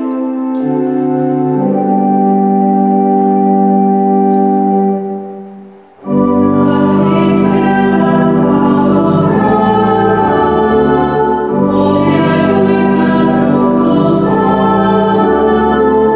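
Church organ playing slow sustained chords. It fades out about five seconds in and comes back a moment later with a fuller sound and deep pedal bass.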